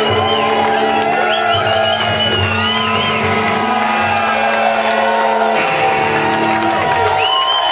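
Live rock band with electric guitars holding a loud sustained chord, which shifts about five and a half seconds in, while the crowd cheers and whoops over it.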